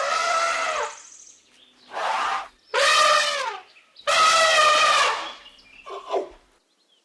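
Elephant trumpeting: four loud, pitched calls of about a second each with short gaps between them, and a short one near the end.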